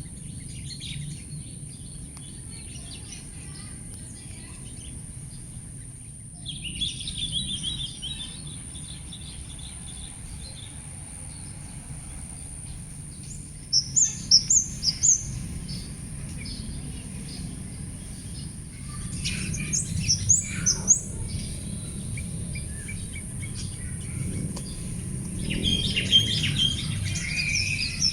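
Several small birds chirping and calling, with a quick run of six or so high, sharp notes about halfway through and a busier burst of chirps near the end, over a steady high-pitched hum and a low background rumble.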